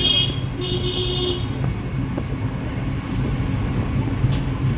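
Steady low engine rumble of a vehicle running, with two short horn toots in the first second and a half.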